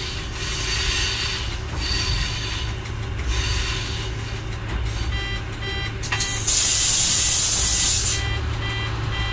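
Y1 diesel railcar running along the track, heard from the driver's cab as a steady rumble of engine and wheels. About halfway through, a short beeping tone starts repeating quickly, and for about a second and a half near the end a loud hiss covers everything.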